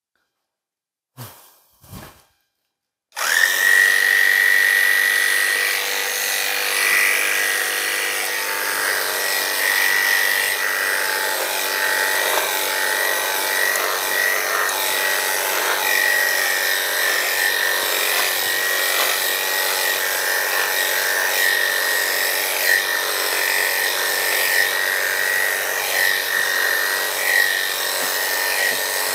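Electric dog grooming clippers start abruptly about three seconds in and run steadily with a high whine, the blade shaving a standard poodle's coat. Two short soft sounds come just before.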